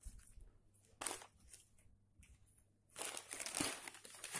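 Newspaper and plastic sheeting crinkling as hands crumple and press them into a cardboard box: a short rustle about a second in, then a longer bout of crinkling near the end.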